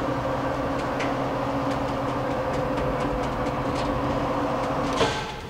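Blanchard 22K-42 rotary surface grinder's table drive running with a steady hum and a few faint ticks, moving the rotating chuck table in and out on its ways. The hum drops off about five seconds in as the table stops.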